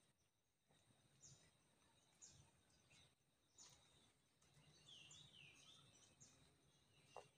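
Faint birds chirping in quiet outdoor ambience: short high notes that drop in pitch, about one a second, with a small cluster of lower chirps about five seconds in, over a faint steady high hum.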